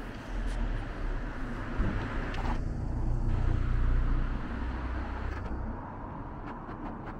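Outdoor town ambience: a low rumble that builds and fades in the middle, with a few faint ticks near the end.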